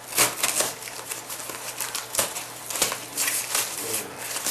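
Plastic packaging crinkling and rustling as it is handled and opened, in quick irregular crackles.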